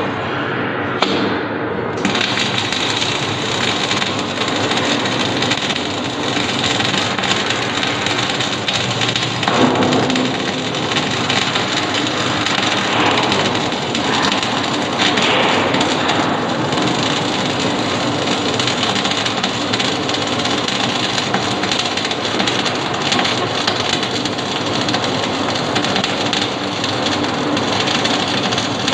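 Electric arc welding: a steady, dense crackle from the welding arc.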